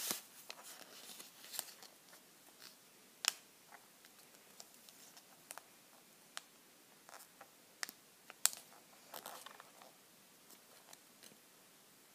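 Origami paper being folded and creased by hand: faint crinkling and rustling, with sharp little clicks and scrapes as fingers press the folds flat, the sharpest about three seconds in and again just past eight seconds.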